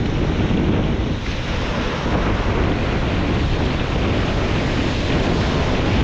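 Surf washing steadily onto a beach, with wind buffeting the microphone and adding a low rumble.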